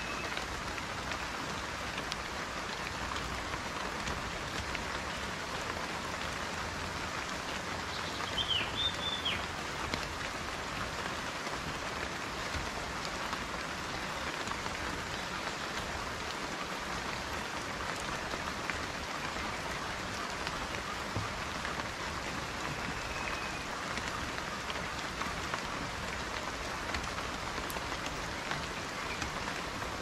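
Steady rain falling, an even hiss of drops, with a few quick high chirps about eight seconds in.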